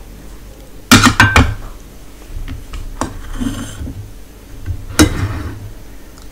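Plates and bowls clinking and knocking as they are handled and set down on a table: a quick cluster of sharp clinks about a second in, then a scrape and single knocks about three and five seconds in.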